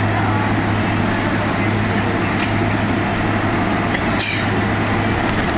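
Steady cabin noise inside a Boeing 767-200 taxiing on the ground, with the engines at idle under a strong, constant low hum. A brief click about four seconds in.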